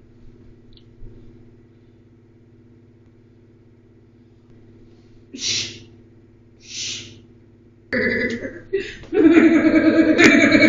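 A person shushing twice, two drawn-out "shhh" sounds about a second apart, over a low steady hum. Near the end a loud voice breaks in.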